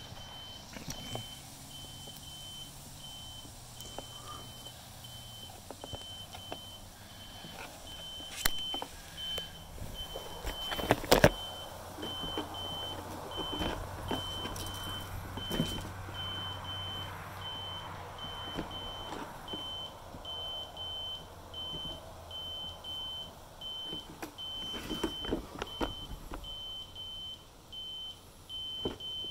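An electronic beeper in the RC electronics giving a regular high-pitched beep about once a second, the kind of alert given after a lost radio signal. Handling clicks and knocks sound over it, the loudest about eleven seconds in.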